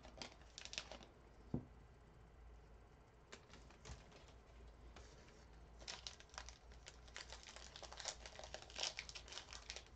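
Faint crinkling and light clicking of trading-card box packaging being handled, in scattered bursts that grow busier in the second half.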